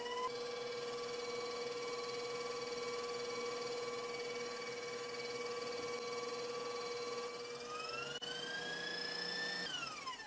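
Bowl-lift stand mixer's motor whining steadily as its wire whisk beats a red-tinted meringue of egg white and sugar. The pitch rises as the speed is turned up near the end, then falls away as the mixer is switched off.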